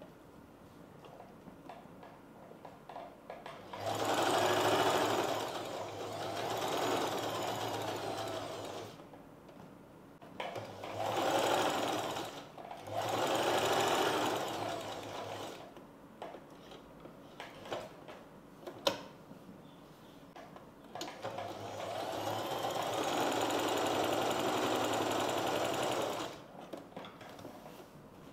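Sewing machine stitching fabric in several short runs of a few seconds each, stopping between runs. The stops are where the needle is left down in the cloth and the work is turned, as the cup of a blouse is stitched along its curve onto the lining.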